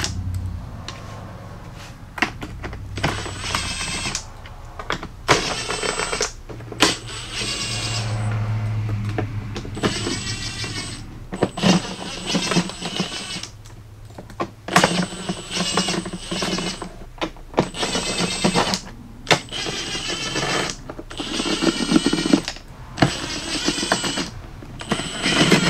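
A cordless power driver backing out small 8 mm screws from a plastic HVAC box, whirring in about ten short bursts of a second or two each, with pauses between them.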